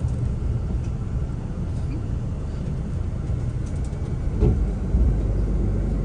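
Steady low engine and road rumble inside a moving transfer bus, with a single thump about four and a half seconds in.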